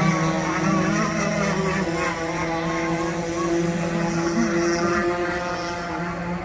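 Radio-controlled model boat's motor running steadily at a constant pitch.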